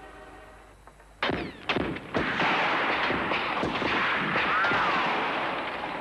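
Gunfire starting suddenly about a second in: a few separate shots, then a dense, continuous volley of many shots, with a short whistling whine about halfway through.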